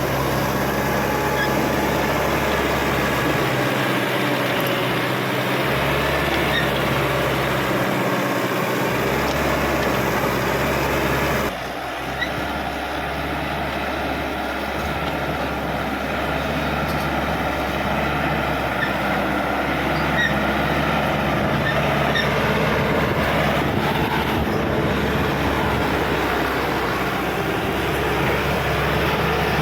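Caterpillar D5K XL crawler dozer's diesel engine running steadily under work. About a third of the way in, the sound changes abruptly and drops a little in level.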